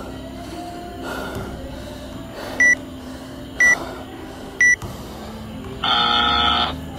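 WODProof interval timer's end-of-round countdown: three short high beeps a second apart, then a longer, louder buzzer tone as the timer reaches zero, marking the end of the final work interval.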